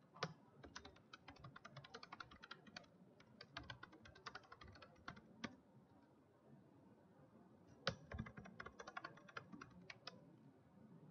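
Faint typing on a computer keyboard: quick runs of key clicks, a pause of about two seconds past the middle, then another short run of keystrokes.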